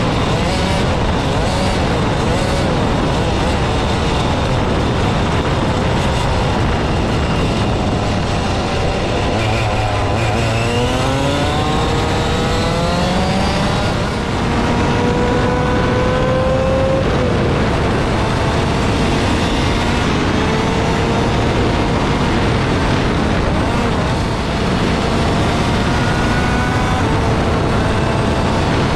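Onboard sound of a fifth-scale RC rally car running at speed on a road. A steady loud rush of wind and tyre noise runs throughout. Over it the motor's pitch rises several times as the car accelerates and drops off in steps, as it runs up through its two-speed gearbox.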